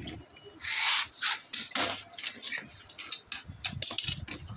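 Irregular scraping and rubbing, a string of short rough strokes with the loudest about half a second to a second in.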